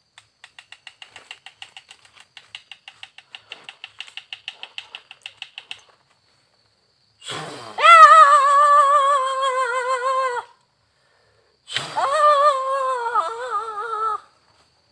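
Two long, high, wavering wails, the first about three seconds and the second about two seconds, from a voice crying out. Before them comes several seconds of fast rhythmic pulsing, about seven pulses a second.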